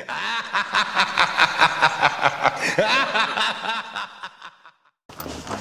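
Laughter: a quick run of laughs, about four or five a second, lasting some four and a half seconds before it stops.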